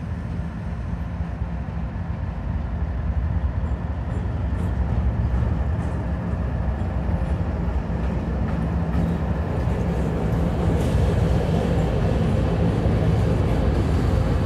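Diesel freight train rolling by with a steady low engine rumble and faint rail ticks, growing gradually louder.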